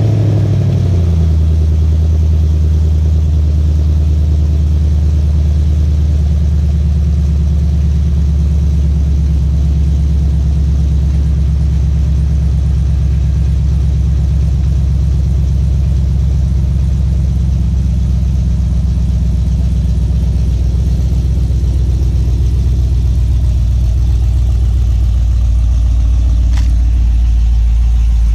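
Chevrolet Camaro SS's LS3 V8 idling steadily just after being started, a low, even exhaust note through its GM Performance mufflers.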